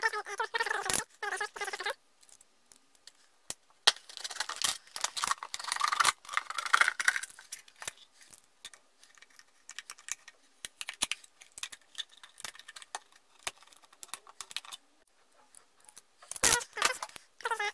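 Utility knife cutting into a thin white plastic bottle: scraping and rasping of the blade through the plastic amid clicks and taps of handling, with short pitched squeaks near the start and near the end.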